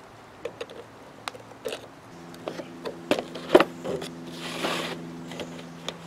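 Scattered clicks and taps of pliers working a soft copper wire through small drilled holes in a plastic bucket lid. A steady low hum comes in about two seconds in, and a short hiss sounds just past the middle.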